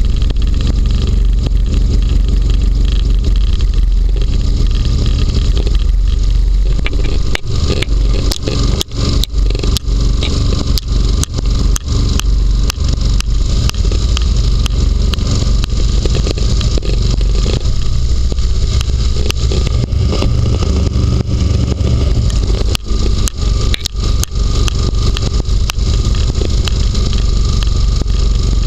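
Inflatable hovercraft running at speed over snow, its engine and propeller fan making a loud, steady, low drone close to the hull. From about seven seconds in until near the end, frequent sharp clicks and knocks cut through it, with scraping from the skirt.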